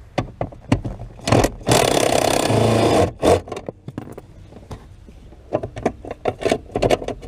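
Tool work on bolts under a car's dashboard: scattered metal clicks and knocks, a loud steady rasping burst lasting about a second and a half near the start, and a run of quick clicks near the end.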